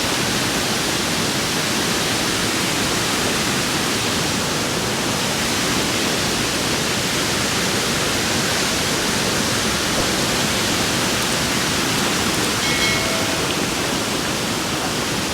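Water pouring over the Delaware & Raritan Canal waterfall, a steady rushing that stays loud and even throughout.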